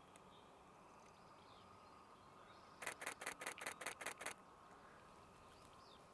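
Nikon Z6 II camera shutter firing a rapid burst of about nine frames, lasting a little over a second, about three seconds in.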